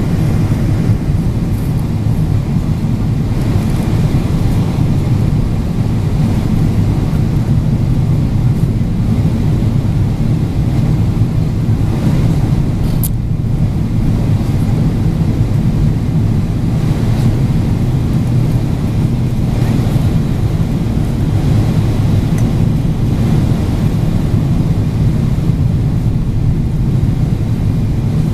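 Steady cabin noise of a jet airliner in flight: a deep, even drone of engines and rushing air. A single short click comes about 13 seconds in.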